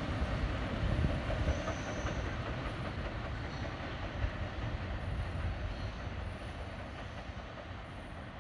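A freight train of empty tank cars rolling away over the rails, its low rumble of wheels fading steadily.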